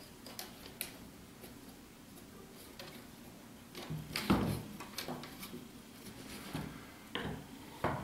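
Hands handling a 3D-printed PLA plastic 4x5 field camera as its front standard is swung upright and the bellows drawn out: light clicks and knocks of plastic parts, with the loudest clunk about four seconds in.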